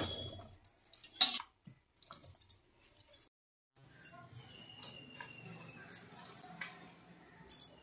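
A few light metallic clinks and rattles from a stainless steel mesh strainer as boiled potato sticks are tipped and shaken in it, the sharpest about a second in and another near the end.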